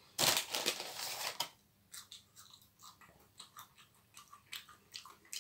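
A person chewing crispy fried chicken wing close to the microphone: a loud crunching stretch over the first second and a half, then fainter, irregular crunches and mouth clicks.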